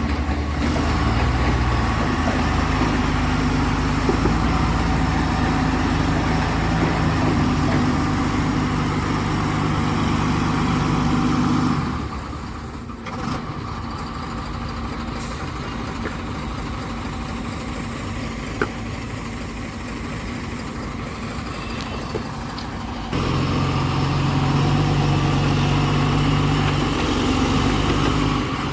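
Heavy diesel engines running, the engine note stepping up and down in pitch. It drops sharply about twelve seconds in, stays lower and rougher for about eleven seconds, then comes back as abruptly.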